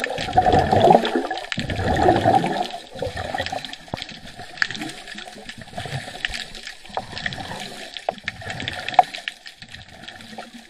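Underwater bubbling and gurgling heard through an action camera's waterproof housing, as a scuba diver exhales: two loud gushes of bubbles in the first three seconds, then a quieter wash with scattered sharp clicks.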